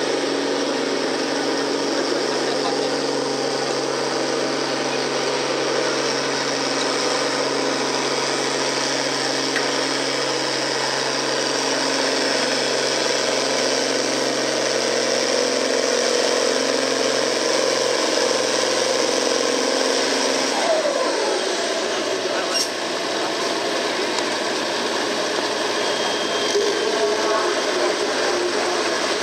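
Farmall tractor's diesel engine running hard and steady under full load as it pulls the weight-transfer sled. About two-thirds of the way through, the pitch falls as the engine is throttled back to a lower steady speed at the end of the pull.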